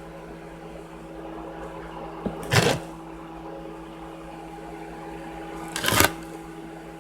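Kitchen appliance humming steadily with several even tones, like a running microwave oven. There are two short, noisy bursts, one about two and a half seconds in and one about six seconds in.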